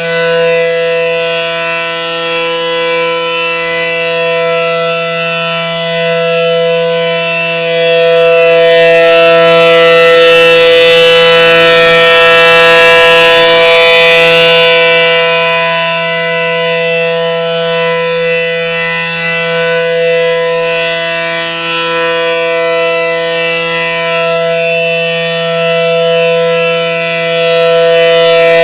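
ACA Allertor 125 electromechanical siren sounding a steady alert at full speed: a loud, unwavering chord with no rise or fall in pitch. Its loudness swells about eight seconds in, falls away around sixteen seconds, and builds again near the end as the rotating horn sweeps toward and away from the listener.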